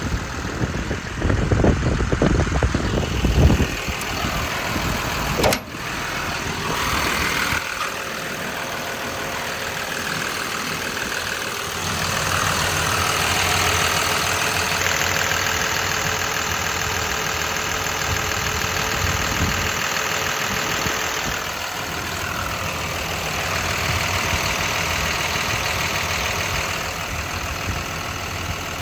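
John Deere 210G LC excavator's diesel engine running at a steady idle. Heavy low rumbling in the first few seconds and a single sharp click about five and a half seconds in.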